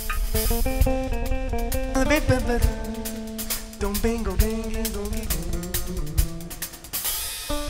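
Live band of electric guitar, electric bass and drum kit playing. The guitar carries a melodic line with bent, sliding notes over busy drums and cymbals.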